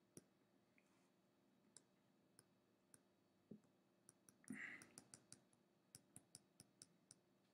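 Faint, irregular clicks of a stylus tapping and striking a tablet screen during handwriting, coming closer together in the second half. There is a brief soft hiss about halfway through.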